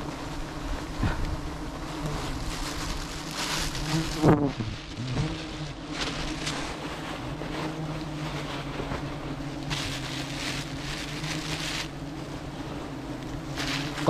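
A mass of honeybees buzzing steadily, with bursts of rustling noise now and then.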